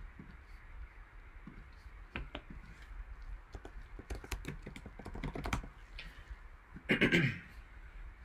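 Typing on a computer keyboard: irregular key clicks with a quick run of keystrokes in the middle, as a web search is typed. A louder short thump or rustle comes about seven seconds in.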